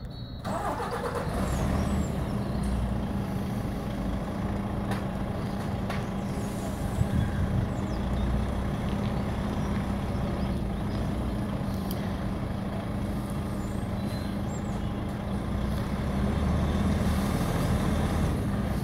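DAF lorry's diesel engine running with a steady low hum as the truck manoeuvres slowly, a little louder near the end.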